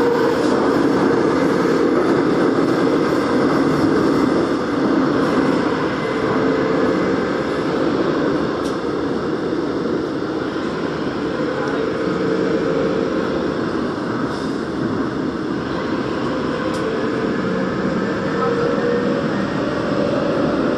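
Daegu Metro Line 2 subway train running steadily through a tunnel, heard on board: an even rumble of wheels on rail and running gear, with a faint hum that comes and goes.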